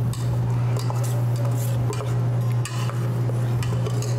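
Metal spoon stirring a wet batter in a stainless steel pot, scraping and clinking irregularly against the sides, over a steady low hum.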